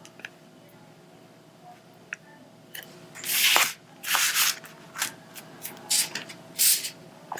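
Diamond painting materials being handled close to the microphone: a few faint ticks, then from about three seconds in five short crackly rustles, the first the longest.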